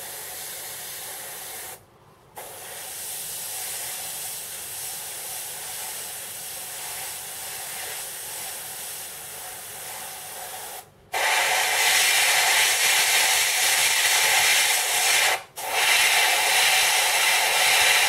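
Gravity-feed airbrush hissing as it sprays thinned paint. The hiss stops briefly three times, about two, eleven and fifteen seconds in, and is louder from the second break on.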